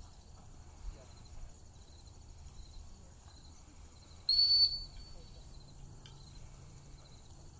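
Retriever handler's whistle: one sharp, high blast about halfway through, the single-blast sit whistle that stops a dog running a blind retrieve so it can be handled.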